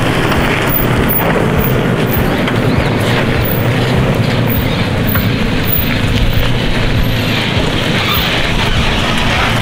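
Off-road 4x4 moving along a rutted dirt trail: a steady low engine hum under loud, constant rumbling and buffeting.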